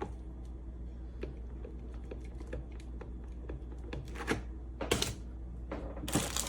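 The cordless electric kettle's power base is rocked and handled on a countertop, making scattered light clicks and knocks, with a few louder knocks in the second half. The rocking is a sign that the base wobbles instead of sitting flat.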